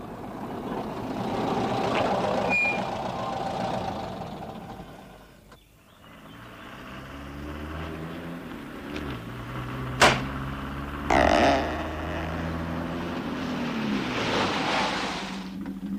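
Vintage open two-seater car's engine: a rushing swell at first, then after a brief drop a steady low engine hum. A sharp knock comes about ten seconds in, followed by a short burst of noise, and a hiss swells near the end.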